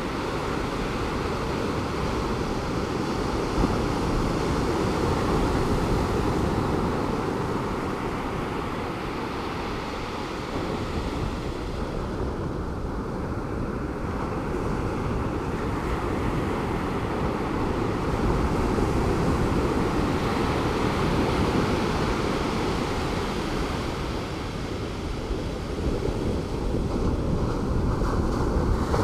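Pacific Ocean surf breaking gently on a beach, a steady wash of waves swelling and easing over several seconds, with some wind on the microphone.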